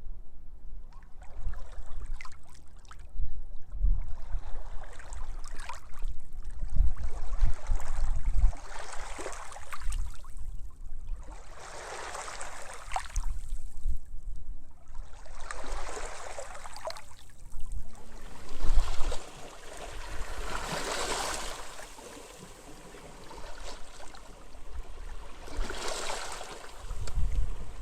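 Sea waves washing onto a beach, each wash swelling and fading over a few seconds, with wind rumbling on the microphone.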